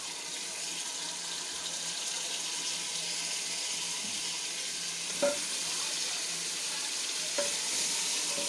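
Steady sizzle of onion and garlic frying in oil in a pot on a gas stove, with soft water splashing as pieces of beef are rinsed in a bowl. A sharp clink about five seconds in, and a lighter one a couple of seconds later.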